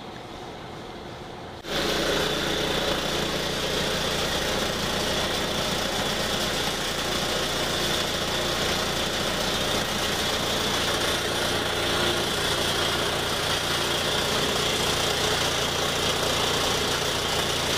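MicroGrinding VKE 1040 pilot grinding mill running: a loud, steady, even machine noise with a constant hum that starts abruptly about two seconds in.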